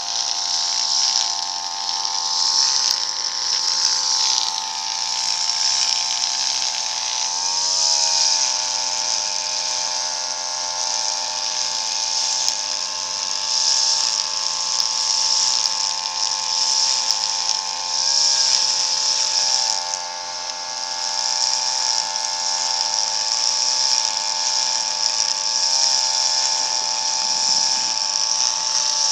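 Backpack brush cutter's small two-stroke engine running steadily at high speed while its cutting head swings through grass. The engine note wavers briefly three times.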